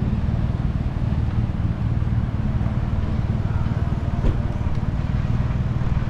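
City street ambience: a steady low rumble of road traffic, with one short sharp tick a little after four seconds in.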